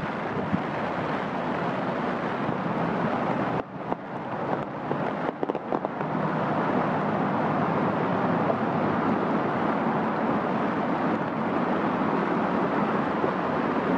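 Steady hiss of rain falling on trees, leaves and ground. The hiss drops out suddenly about three and a half seconds in and stutters for a couple of seconds before it steadies again.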